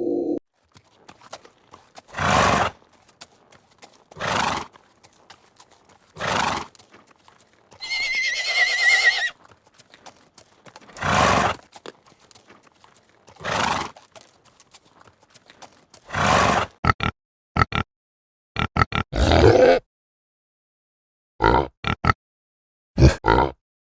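Horse sounds: short noisy blows about every two seconds, a wavering whinny about eight seconds in, and a quick run of shorter bursts near the end.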